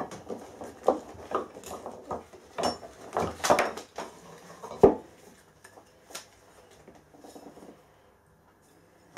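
Steel hand files clinking and scraping against one another and the workbench as they are picked up and laid down: a run of metallic clatters, the loudest knock about five seconds in, then fainter, sparser handling.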